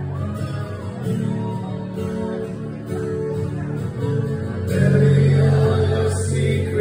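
Live acoustic guitar with a male voice singing, recorded from the audience in a concert hall. It swells louder about five seconds in.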